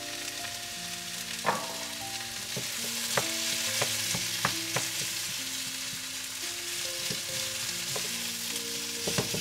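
Chopped chipolata sausages and bacon sizzling in hot oil in a frying pan with sliced courgettes and red onion: a steady hiss, with a few sharp knocks of the wooden spoon stirring them against the pan.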